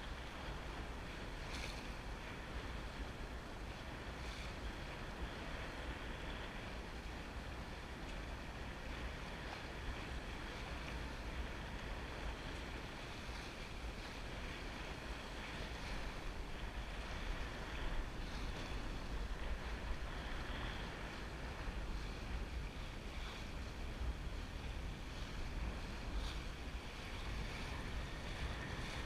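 Sailboat hull moving through choppy water under sail, with steady rushing and splashing along the hull and occasional slaps of spray. Wind buffets the microphone with a low rumble throughout.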